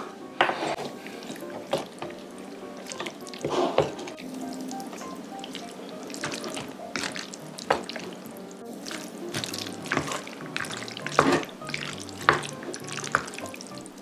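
Wooden chopsticks working noodles through thick black bean sauce in a ceramic bowl: wet, sticky mixing sounds with scattered sharp clicks and knocks, over soft background music.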